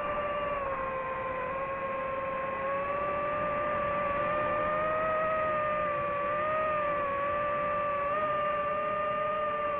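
DJI FPV drone's motors and propellers whining steadily in flight, the pitch wavering slightly up and down with the throttle.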